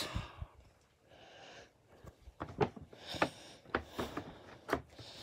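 Light clicks and taps from a hand handling a boxed animated figure's cardboard-and-plastic window packaging, about six spread over a few seconds, after a soft breath about a second in.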